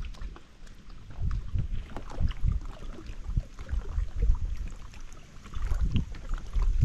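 Wind buffeting the microphone in irregular low gusts, with small waves lapping and splashing against a kayak's hull in scattered little ticks.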